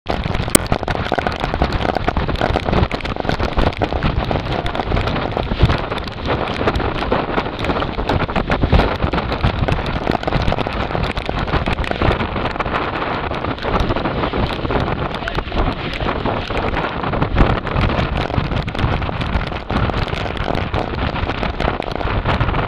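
Continuous noise of rough, swell-driven sea water and heavy rain, with many small clicks and knocks running through it.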